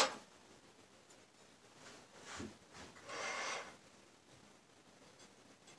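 Quiet kitchen handling sounds: a sharp click of a knife set on a table at the start, a soft knock about two and a half seconds in, then a short rustling hiss as a herring is handled at the counter.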